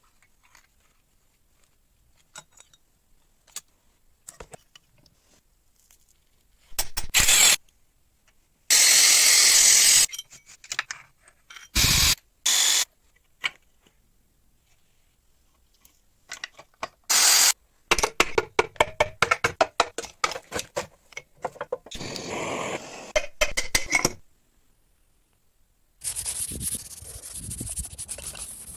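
Workshop tool work on metal parts: scattered clicks, several short loud bursts like a power tool running briefly, and a run of rapid scraping strokes.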